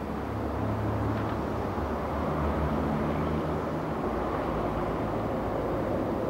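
Steady low rumble of an express passenger train approaching slowly over a rail bridge, a little louder from about half a second in.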